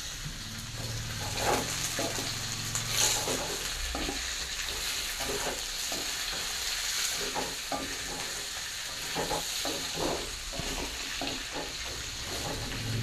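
Jengkol slices with shallots, garlic and leaves sizzling in hot oil in a wok, stirred with a plastic slotted spatula that scrapes and taps against the pan again and again over the steady hiss.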